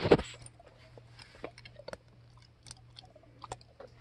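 A dog chewing something hard, giving a scatter of short, faint, irregular crunches and clicks. A brief loud burst of noise cuts off just after the start.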